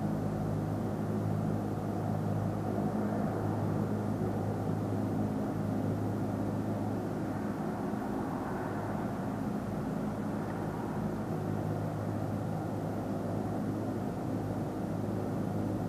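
Steady, low-pitched droning hum made of several level tones, with a faint rushing haze above it: the unexplained 'hum from the sky' being recorded, which the recorder insists is not a plane.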